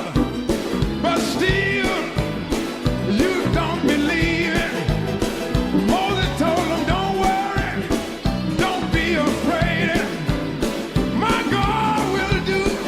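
Background music: a rock-and-roll style song with singing over a steady drum beat.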